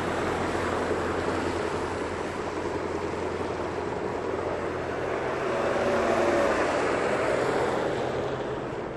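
Road traffic passing on a wet, slushy road: car engines and tyre noise as a steady rush that swells about six seconds in as a car drives by.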